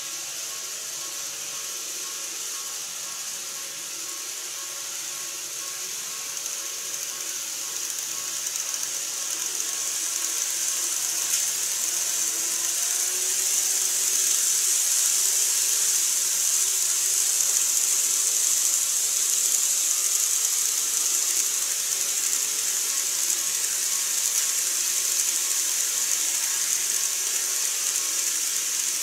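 N-gauge model electric train running along the track: a steady, high-pitched rushing whir of its motor and wheels. It grows louder over several seconds as the train comes close, then stays loud.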